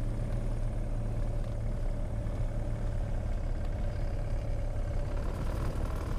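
Cessna 182's piston engine and propeller running steadily at idle, heard from inside the cabin, a low hum with little change in pitch.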